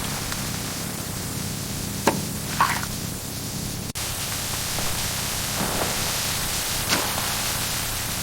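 Steady rain hiss, with a few light taps or knocks about two seconds in and again near seven seconds, and a brief break in the sound about four seconds in.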